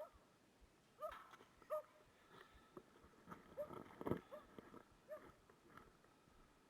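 Faint short, arched whining squeaks from an animal, repeated irregularly, with a louder scuffing noise about four seconds in.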